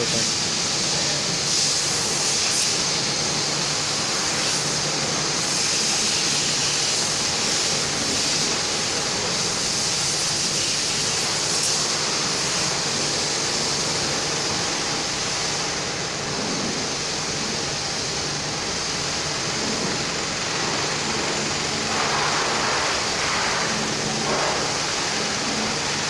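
Car-wash bay equipment running: a steady rushing hiss over a low, even machine hum.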